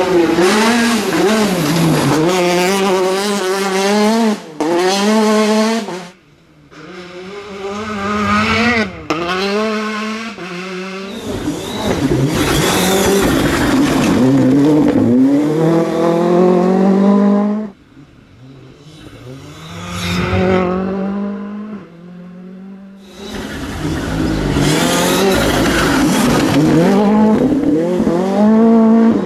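Rally cars at full throttle on a gravel stage, passing one after another. Each engine revs up, drops at a gear change and climbs again.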